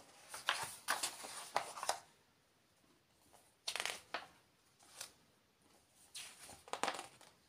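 Pages of a paperback picture book being turned by hand: papery rustles and flaps in several short bursts, a cluster in the first two seconds, another near the middle and more near the end.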